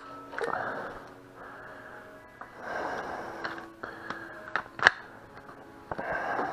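A single sharp shot from a gas blowback airsoft gun about five seconds in, with a few faint clicks just before it. Between them come three soft, breathy swells of heavy breathing over a faint steady hum.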